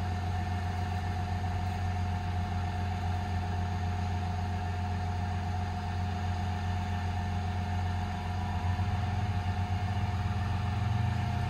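Cummins 6.7 diesel of a Ram 5500 running steadily, with the steady whine of the IMT crane's hydraulics as the boom telescopes out. The low engine note wavers and grows a little louder over the last few seconds as the load changes.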